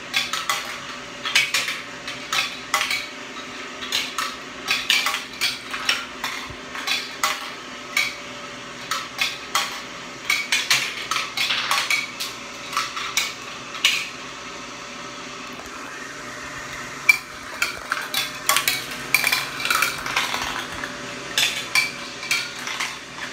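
Marbles clattering through a plastic marble run: quick, irregular clicks and rattles as they drop through the chutes and spiral funnels, with a short lull about two-thirds of the way through.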